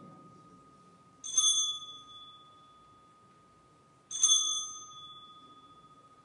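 Altar bell rung twice, about three seconds apart, each strike a clear ring that fades slowly. It marks the elevation of the chalice at the consecration of the Mass.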